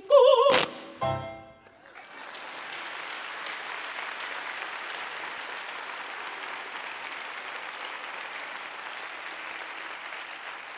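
Sopranos end the song on a held, wavering note cut off by a sharp closing stroke, with a short chord ringing about a second in. Then steady audience applause from about two seconds in.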